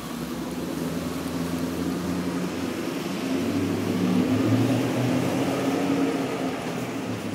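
Porsche Panamera Turbo's twin-turbo V8 running as the car pulls away slowly through an underground parking garage. The engine note grows louder about three seconds in, then eases off near the end.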